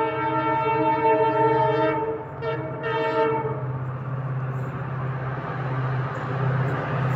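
Locomotive horn of an approaching express train sounding a long blast, breaking off briefly about two seconds in and sounding again for about another second. After it stops, the rushing noise of the oncoming train grows steadily louder.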